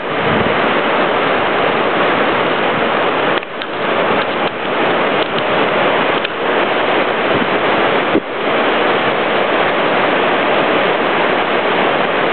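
Loud, steady roar of whitewater rapids, dipping briefly twice, about three and a half and eight seconds in.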